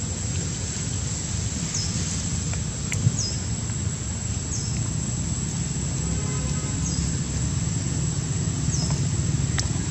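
Outdoor ambience: a steady low rumble under a thin, steady high whine, with short falling chirps every second or two and one sharp click about three seconds in.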